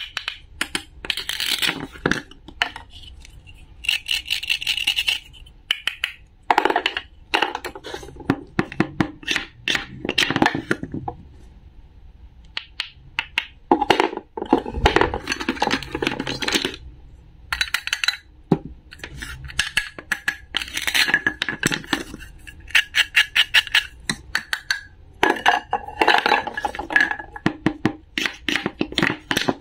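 Wooden toy play-food pieces being cut apart with a wooden toy knife on a wooden board: the Velcro joining each piece's halves rips open with a raspy crackle, between wooden clicks and taps of the knife and pieces on the board. The crackling and clicking come in runs of a second or two, with short pauses between them.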